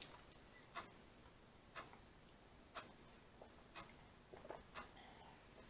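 A clock ticking faintly, once a second.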